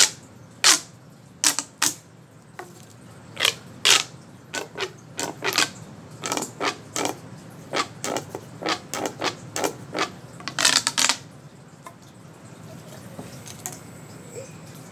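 Sharp clicks from a fidget toy, tapped out in an uneven rhythm as the beat of a song for about eleven seconds, then stopping.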